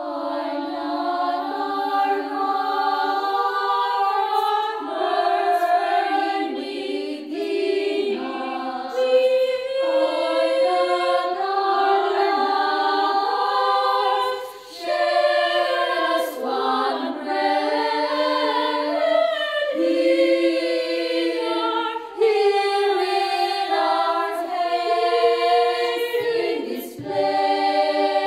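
Small choir of mostly women's voices singing a cappella in harmony, with two brief breaks between phrases.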